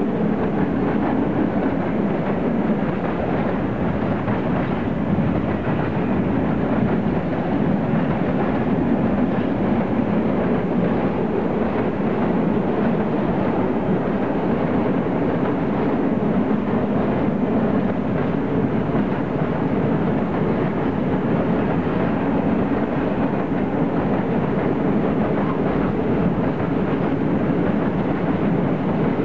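Long freight train of open-top gondola wagons rolling past at steady speed: continuous rolling noise of steel wheels on rails.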